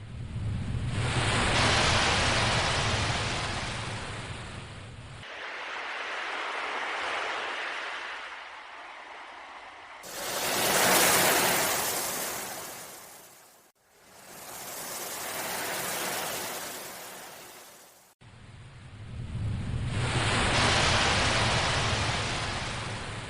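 Ocean waves surging and washing back in slow swells, several in a row, the strongest about halfway through. The first and last swells carry a low rumble.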